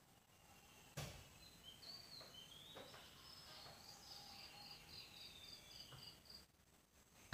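Faint bird calls in the background: a few rising whistles, then a run of quick, evenly repeated high notes, with a single click about a second in.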